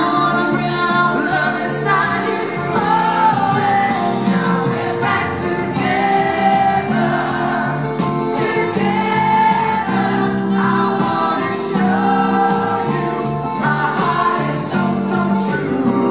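Live pop duet: a man and a woman singing into microphones over a full band, with no pauses.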